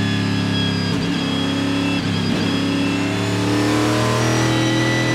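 Panoz Esperante GTR-1's 6-litre V8 race engine heard from inside the cockpit, revs falling with brief breaks in the note about one and two seconds in as it changes down, then climbing again under throttle near the end.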